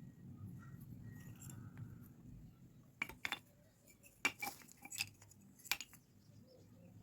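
Clay pots and kitchenware knocking and clinking together as they are handled: about six sharp clinks in the second half.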